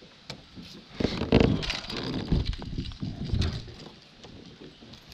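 Irregular knocks, clicks and rustling of fishing gear being handled in a small boat, busiest from about a second in to past the middle.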